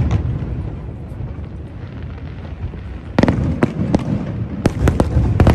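Aerial fireworks shells bursting: sharp bangs over a continuous low rumble, one bang near the start and then a quick cluster of several about three to five seconds in.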